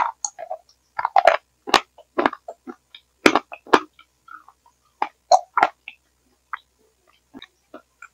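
Close-up mouth sounds of eating a soft, creamy food: wet chewing and smacking in short, sharp, irregular bursts with dead silence between them. The sound is mangled by a failing headphone microphone, which the uploader likens to gurgling.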